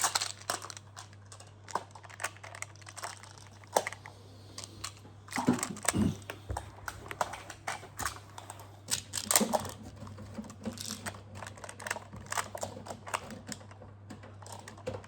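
Plastic magnetic building tiles being handled, snapped together and set down, making irregular sharp clicks and clacks, with busier clattering twice in the middle.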